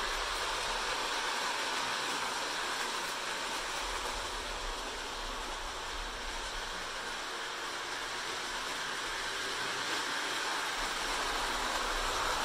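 Lionel O-gauge toy train rolling on plastic-roadbed track: a steady rolling noise of wheels on rails from the passing freight cars. It dips a little in the middle and grows louder near the end as the blue Mopar switcher locomotive comes past close by.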